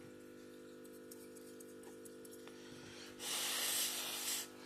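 A steady low hum of several tones, then, about three seconds in, a loud hiss lasting a little over a second.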